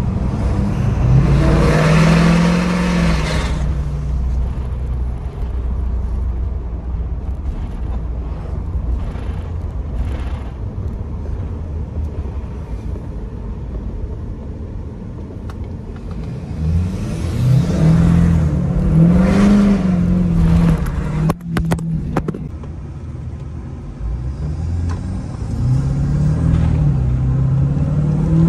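Ford 6.7 L Power Stroke V8 turbodiesel heard from inside the cab of an F-350 dually, running an aftermarket level-5 tune. Three gentle pulls: the engine note climbs and settles about a second in, again past the middle, and near the end, with steady cruising between.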